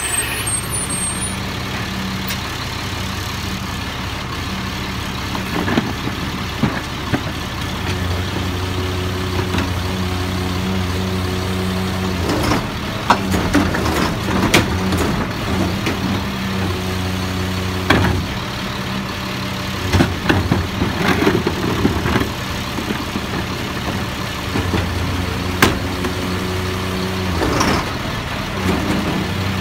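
Garbage truck's diesel engine idling, its hum swelling twice while the hydraulic cart tipper lifts and dumps carts. Sharp clanks and clatter come as the plastic carts bang against the hopper and the trash falls in.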